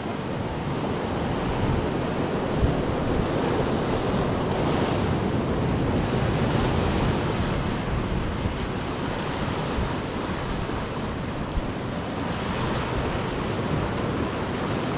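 Sea waves breaking and washing over shoreline rocks in a steady surf, with wind buffeting the microphone.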